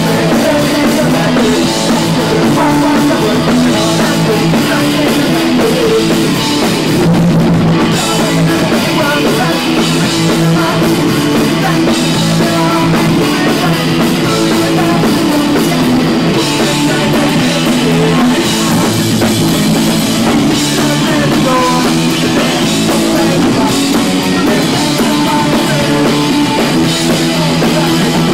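A punk rock band playing live at full volume: a drum kit and electric guitars, with a male singer at the microphone.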